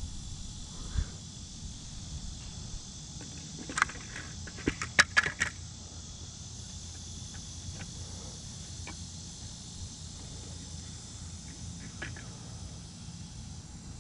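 Steady high-pitched drone of insects over a low rumble, broken by a quick cluster of sharp clicks and knocks about four to five seconds in, with a single thump near the start.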